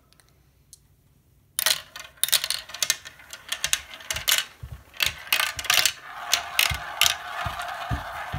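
Two marbles running down a plastic marble run: after a short quiet they start clattering and clicking through the tubes and tracks about a second and a half in, then roll round and round a wide plastic funnel bowl with a steady whirring rumble near the end.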